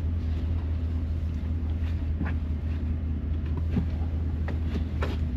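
Motorhome engine running with a steady low hum, heard from inside the cab.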